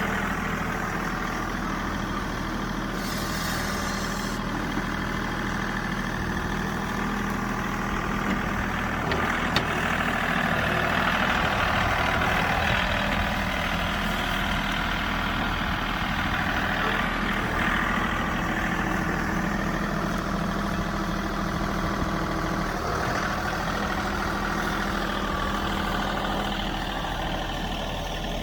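An engine running steadily with a constant low hum, slightly louder for a few seconds around ten seconds in.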